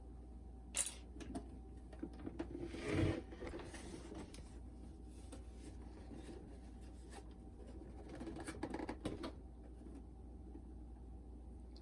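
Handling noises from working on a boombox's casing: a sharp click about a second in, a louder knock and rub near three seconds, and light scraping and clicking around eight to nine seconds.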